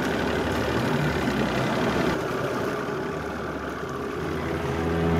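Boat engine idling, a steady low rumble mixed with wind and water noise. Music fades in near the end.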